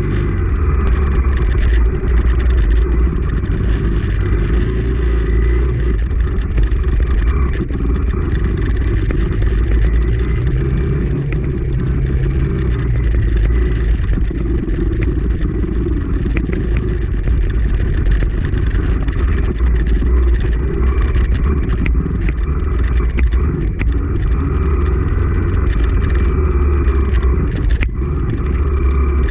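Honda CRF250F dirt bike's air-cooled single-cylinder four-stroke engine running steadily, with scattered clicks and knocks over it.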